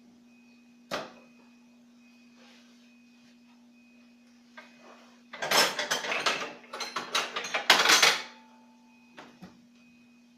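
A single sharp click, then about three seconds of irregular metallic clattering and rattling, like tools or parts being handled, and two short clicks near the end, over a steady low hum.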